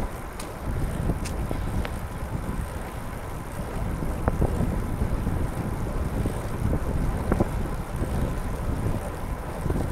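Wind buffeting the camera microphone while riding a recumbent racing trike on a wet road: a steady, uneven low rumble, with a few faint ticks.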